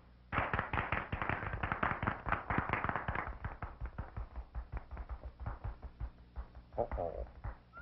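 Cartoon soundtrack of rapid tapping and clattering, a dense run of short knocks that thins out partway through, with a brief pitched sound near the end.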